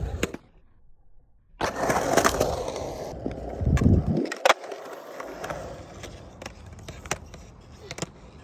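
Skateboard wheels rolling on a concrete bowl, with a deeper rumble as the board drops down the transition, and several sharp clacks of the board and trucks hitting the metal coping. A short near-silent gap falls near the start.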